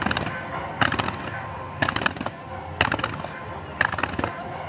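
Music from loudspeakers with a sharp, crackling burst about once a second, in time with the beat.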